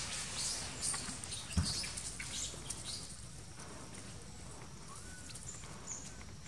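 Dry leaf litter rustling and crackling for the first few seconds, with a single soft thud, then quieter ground ambience with a couple of brief bird chirps near the end.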